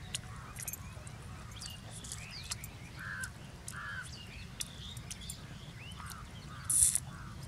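Crows cawing repeatedly, with smaller birds chirping, over a steady low background rumble; a brief loud rustle about seven seconds in.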